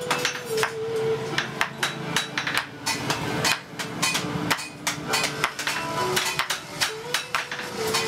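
Hand hammers striking metal in a blacksmith's forge, a quick irregular series of sharp metallic blows, several a second, as bolo blades are worked.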